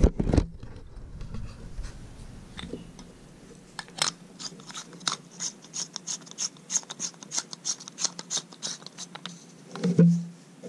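Spiral compact fluorescent bulb being screwed into a lamp socket: a run of short dry scraping clicks, about three or four a second, from the threads turning. A brief low hum near the end.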